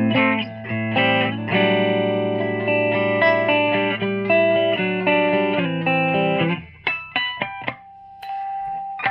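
Electric guitar played clean through a Scholz Research & Design Rockman Compressor module on its Clean 2 setting, into a tube amp and 1x12 speaker cabinet. Compressed, sustaining chords and notes ring out, then comes a run of short, clipped strokes about seven seconds in, and one note is held near the end.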